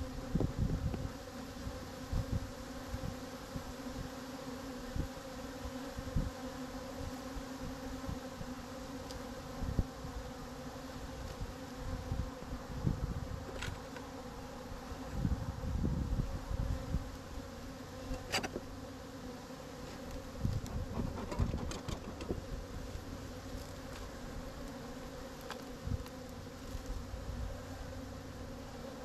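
Honeybees buzzing at an open hive, a steady hum, with many newly hatched drones among them. Occasional low bumps and a few sharp clicks sound over the buzzing.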